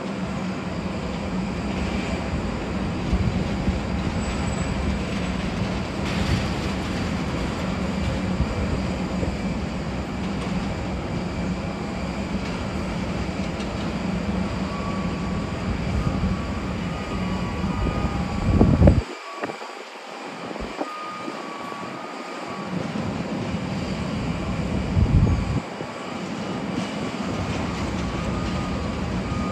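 Steady jet aircraft noise across the apron: a low hum with a faint whine on top. It swells louder just before about nineteen seconds and again around twenty-five seconds, and the low rumble briefly drops away after each swell.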